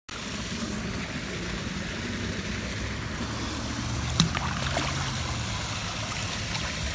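Open-water ambience beside a boat: a steady wash of wind and water with a low steady hum underneath, and a single sharp knock about four seconds in while a bass is handled and released.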